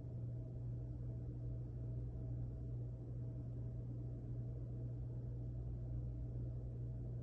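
A steady low hum, unchanging throughout, with faint steady higher tones above it.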